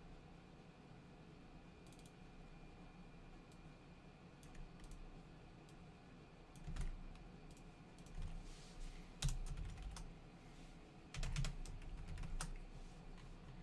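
Faint typing and clicking on a computer keyboard, in scattered runs mostly from about seven seconds in, with a few dull low knocks among them.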